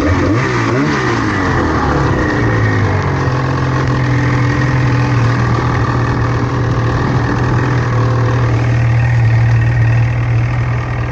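Snowmobile engine running under throttle while riding. The pitch rises and falls for the first couple of seconds, then holds steady.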